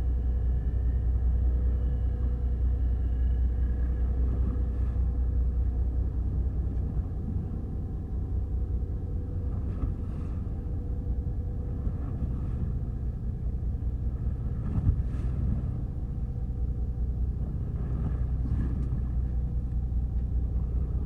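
Fishing boat engine running with a steady low rumble, easing off a little about a third of the way in, with a few scattered knocks.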